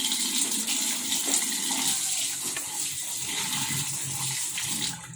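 Palm fruit mash and oil boiling and sizzling in a pan over a low flame, a steady frothy hiss that cuts off suddenly near the end; the foam is still up, so the oil is not yet near its finishing stage.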